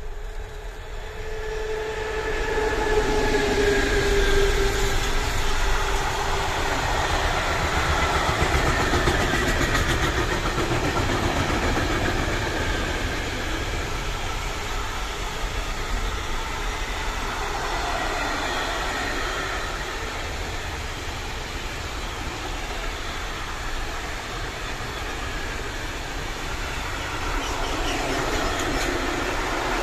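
Locomotive passing at speed with a long container freight train. In the first few seconds its pitched whine falls as it goes by, and then the steady rumble of the container wagons' wheels on the rails carries on.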